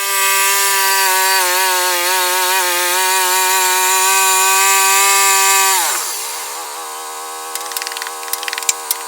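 Sawmill engine running at full speed, steady and loud; about six seconds in its pitch drops and settles lower as the blade loads up cutting into the log, with crackling ticks of the cut near the end.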